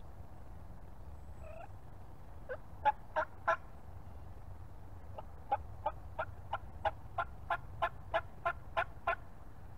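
Turkey yelping: a short run of four yelps a little over two seconds in, then a longer steady series of about a dozen yelps at roughly three a second that stops near the end.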